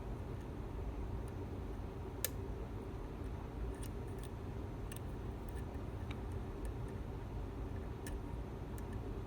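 Lock pick working the pins of a Lockwood MT5+ lock cylinder: faint scattered clicks, the clearest a little over two seconds in, over a steady low hum.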